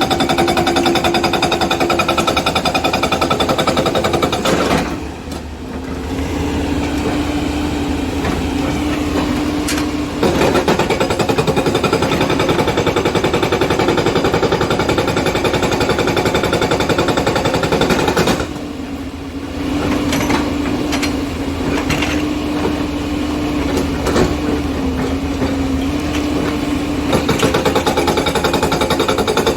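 Excavator-mounted hydraulic rock breaker hammering on stone in rapid, continuous blows over a steady diesel engine. The hammering stops briefly twice, once about five seconds in and once past the middle, then starts again.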